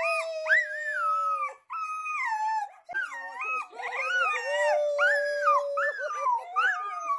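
A dog howling and yowling in long, wavering cries that bend up and down in pitch, with two short breaks, while it is rocked around on its back in play.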